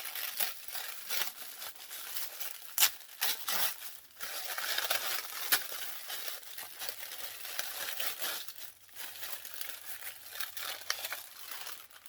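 Wrapping being crinkled, crumpled and torn open by hand, with many sharp crackles and rustles throughout.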